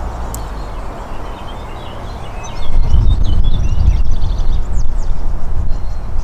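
Wind buffeting the microphone outdoors, a low rumble that grows much louder about two and a half seconds in. Small birds chirp and sing over it.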